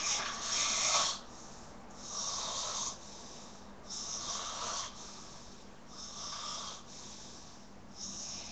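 A sleeping man snoring, with a raspy, hissing breath about every two seconds, five in all; the first is the loudest.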